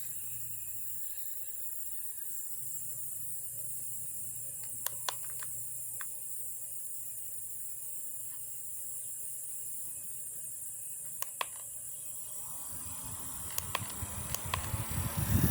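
Small humidifier and mini fan running: a steady high hiss over a low hum, with a few scattered clicks. Over the last few seconds a rushing noise builds louder, with quick clicks, as air blows on the microphone.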